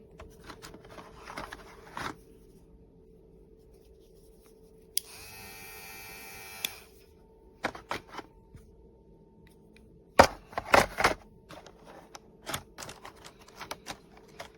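Hair clipper and its plastic accessories being handled: scattered clicks and knocks, a cluster of louder ones near the two-thirds mark. Under them runs a faint steady hum, and a brief buzzing tone sounds about five seconds in.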